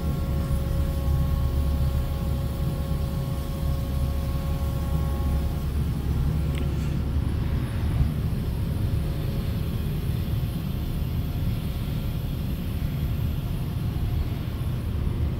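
Steady low machinery hum, with a higher whine made of several steady tones that stops about six seconds in, and a single click about eight seconds in.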